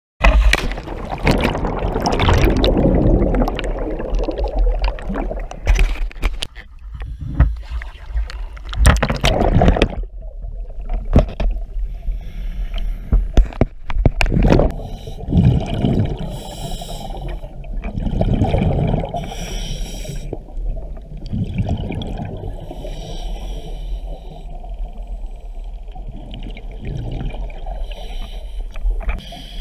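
A scuba diver entering the water from a boat: a loud splash and churning water noise for the first several seconds. Then, underwater, breathing through a scuba regulator, with a hiss on each breath in and a burble of exhaled bubbles every few seconds.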